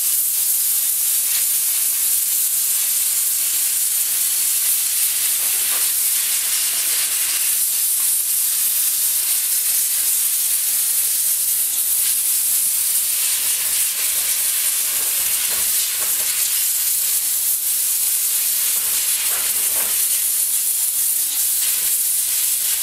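Compressed air from a workshop airline blow gun blasting grit out of an e-mountain bike's rear cassette: a loud, steady hiss, so the chain can sit properly on the teeth.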